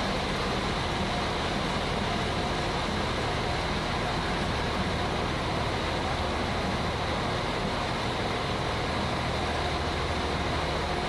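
Diesel railcar idling at a station platform: a steady engine drone with a thin high whine over it, unchanging throughout.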